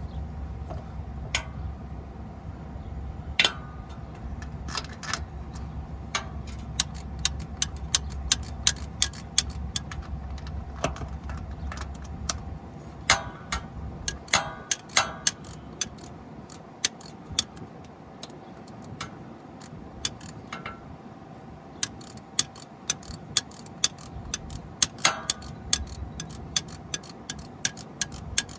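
Hand ratchet wrench clicking in short runs as a bolt is worked under the car, with occasional louder clinks of metal tools.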